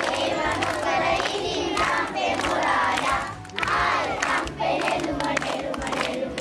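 A group of young children chanting and singing loudly together, with hand claps mixed in.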